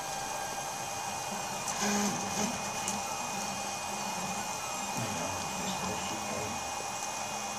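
Prusa Mendel i2 3D printer running a print: its stepper motors buzz in short tones that keep changing pitch as the print head moves, over a steady mechanical whir. The sound is a little louder about two seconds in.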